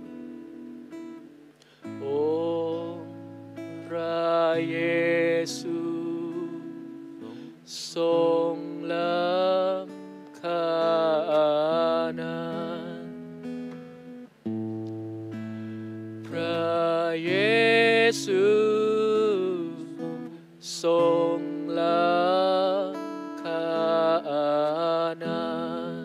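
A man singing a worship song to his own acoustic guitar accompaniment. The guitar plays alone for about the first two seconds before the voice comes in, and he then sings in phrases with short breaks between them.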